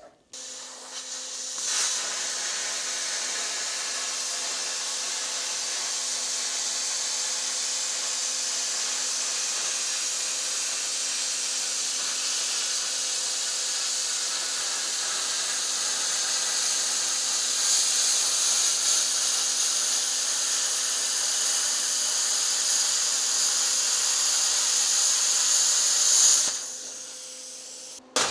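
Plasma cutter cutting sheet steel: a steady hiss of air and arc over a low hum, starting just after the opening and cutting off suddenly near the end.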